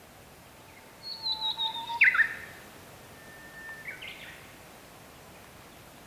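Japanese bush warbler (uguisu) singing its 'hoo-hokekyo' song: a long steady whistled note that ends in a sharp, loud flourish about two seconds in. A quieter, shorter phrase follows around three to four seconds in.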